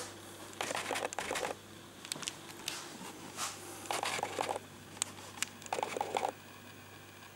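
Irregular clusters of rustling and clicking handling noise, a few bursts a second apart, over a faint steady low hum.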